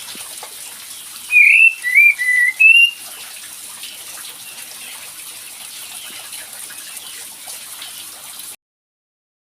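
Short phrase of clear whistled bird notes, typical of a kapas tembak bulbul's song used as a lure: four quick notes bending up and down, about a second in. A steady high hiss runs underneath, and the sound cuts off abruptly near the end.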